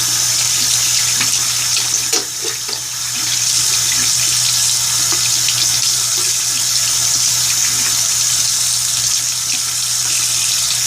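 Water tap running steadily into a sink while hands are washed under the stream; the sound dips briefly about two seconds in, with a few small knocks.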